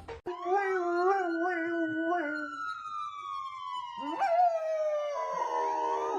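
A dog howling along with a wailing emergency siren. The siren's pitch rises and then slides slowly down, then rises again near the end. Over it the dog holds a wavering howl, with a short sliding cry about four seconds in.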